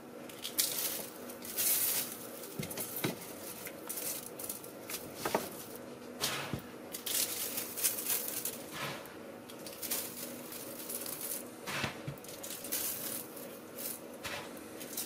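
Hands shifting raw duck legs in a stainless-steel tray and scattering coarse salt over them: irregular wet squishing of meat and crunching, scraping salt grains against the meat and the steel.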